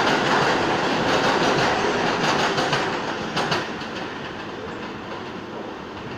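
A subway train rolling over rail joints with a loud clattering rumble that fades from about halfway through.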